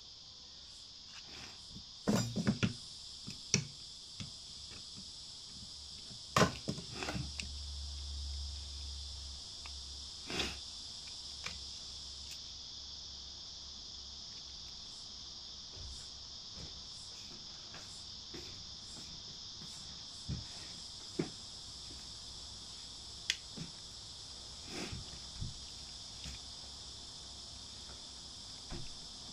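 Sharp clicks and taps of a ZTE MF910 pocket modem's circuit board and plastic frame being handled, a few close together about two seconds in and single ones scattered after, the loudest near six seconds, over a steady high-pitched hiss.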